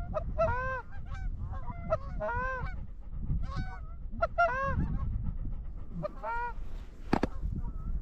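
Canada goose honks, about seven short rising-and-falling honks spaced irregularly over the first six and a half seconds. A single sharp knock sounds about seven seconds in, over a low rumble.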